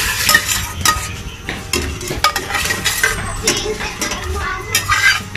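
Metal spatula scraping and clinking against a metal pan as sautéed chicken pieces are slid out into a pot of boiling water, with liquid splashing into the pot near the end.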